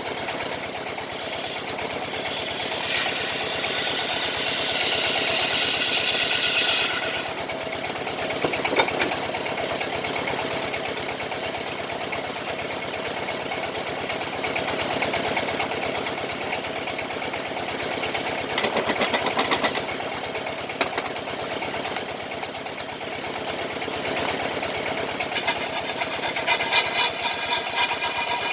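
Wood lathe turning a wooden kendang drum body while a chisel cuts into it, giving a rapid, steady chatter over the machine's hum. The cut turns brighter and higher-pitched for a few seconds about three seconds in.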